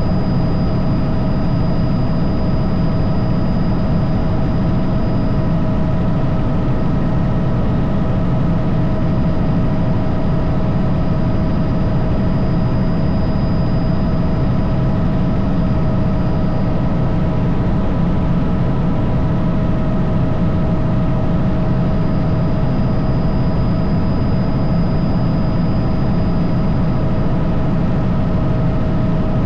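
Helicopter running steadily: a constant loud drone from the engine and rotor, with several thin steady whining tones above it.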